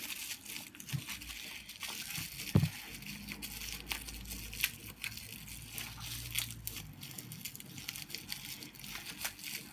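Toy packaging being handled as a die-cast toy engine is packed back into it: scattered rustling and small clicks, with one knock about two and a half seconds in.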